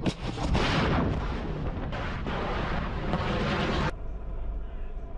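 Missile launched from a warship: a sudden blast, then the loud rushing roar of the rocket motor, which cuts off abruptly about four seconds in.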